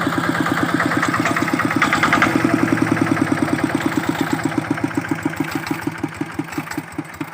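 Single-cylinder diesel engine of a Kubota-powered hand tractor running with a steady chug. It runs a little harder about two seconds in, then fades and slows over the last few seconds.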